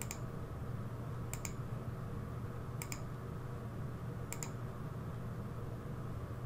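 Computer mouse button clicked four times, each a quick pair of clicks, spaced about a second and a half apart, over a steady low hum.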